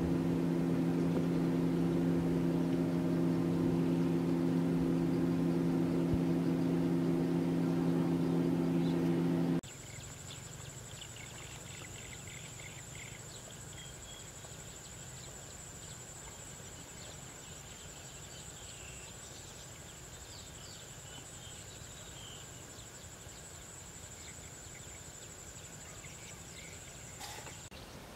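A steady engine drone with a low hum for about the first ten seconds, stopping abruptly. Then a steady high-pitched insect buzz with scattered faint chirps.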